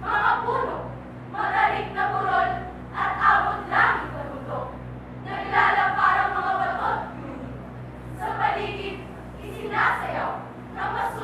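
Girls' voices of a choral speaking troupe sounding together in unison, in about six short phrases with brief pauses between them.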